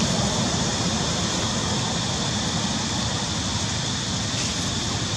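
A steady, even rumble and hiss with no distinct calls or knocks.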